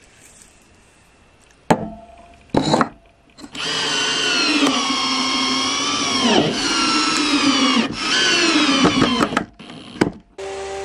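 Intertool cordless drill-driver driving screws through a plywood jig into a log: two quick trigger blips, then a long whining run whose pitch sags twice under load, and one more short burst near the end.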